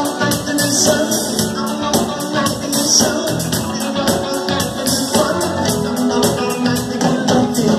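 A band playing a rock song live, with guitar over a steady beat of quick percussion strokes.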